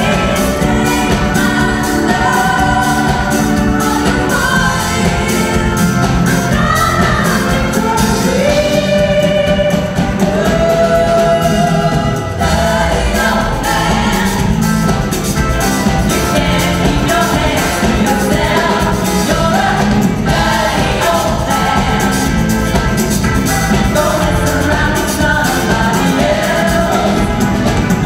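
Live band music: several women singing lead with a group of backing singers, over drums, electric bass and keyboard.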